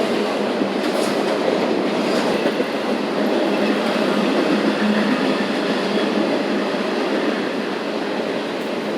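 Norfolk Southern intermodal freight train rolling past: a steady noise of steel wheels on rail, with a few faint clicks.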